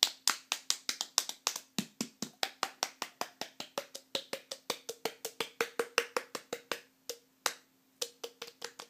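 Open hands rapidly slapping both cheeks, a quick even run of sharp slaps at about five a second that thins to a few scattered slaps near the end.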